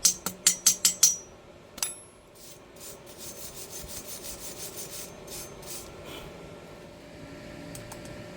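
Metal being filed by hand: quick rasping strokes, about five a second, loud for the first second, then a single metallic clank, then a run of lighter strokes for a few seconds.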